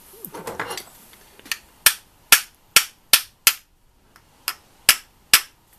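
Small hammer tapping about ten times in quick succession on the metal plates of a Simson five-plate motorcycle clutch pack, to force the tightly tensioned clutch spring into its seat. Sharp metallic taps at two to three a second with a short pause midway, after a brief rattle of the clutch parts being handled.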